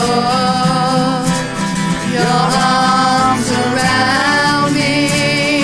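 A song plays: a held, sung vocal melody over guitar with a steady beat.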